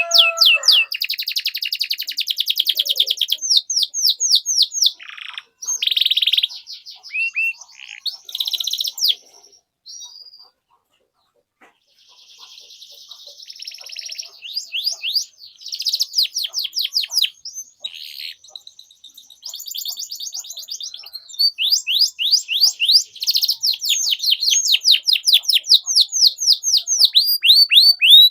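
Domestic canary singing long, fast trills of repeated high chirps that sweep downward, broken by a short pause about ten seconds in before the song resumes.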